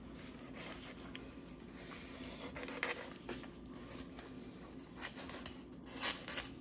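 Faint scraping and tearing of a fillet knife slicing a red snapper's fillet away from the rib bones, with a few short, louder scrapes, the clearest near the end.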